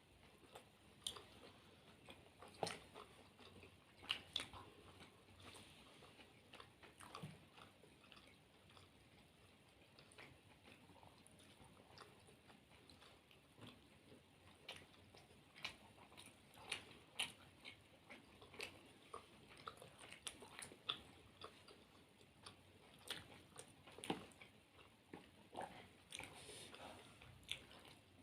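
Faint eating sounds: two people biting into and chewing momos and chilli potato, with scattered soft bites and wet mouth clicks.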